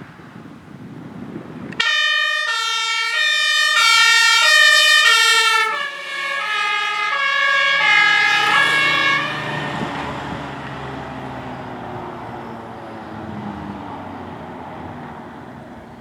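HLF 10 fire engine going by on a call. Its engine approaches, then about two seconds in its two-tone siren (Martinshorn) comes on, alternating between a high and a low note. The notes drop slightly in pitch midway as it passes, and the siren stops after about nine seconds, leaving the truck's engine and road noise fading away.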